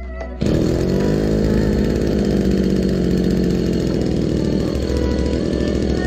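Hecht 9254 leaf blower's small two-stroke petrol engine, started with the pull-cord starter, catches about half a second in. Its pitch rises briefly, then it runs steadily.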